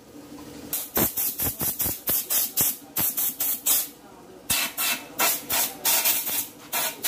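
Compressed air from a compressor's blow gun fired in short, rapid puffs of hiss, about three or four a second with a brief pause about four seconds in, blowing water out of a freshly washed bike frame to dry it.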